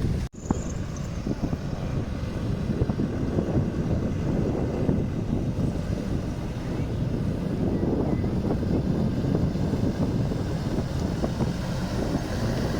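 Wind buffeting the microphone over a steady low rumble, broken by a brief cut to silence just after the start.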